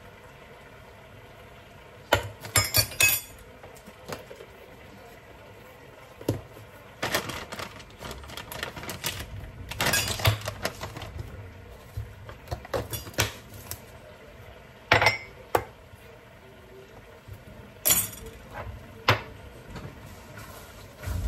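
Metal kitchen utensils clinking and scraping: a spoon knocking against a steel measuring cup and a cooking pan, in scattered clusters of clinks with quieter gaps between.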